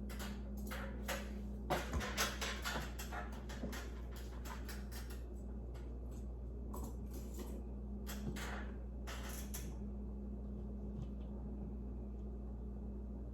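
Hands handling light-fixture parts and tools: a run of small clicks, taps and rustles that thins out after about ten seconds, over a steady low hum.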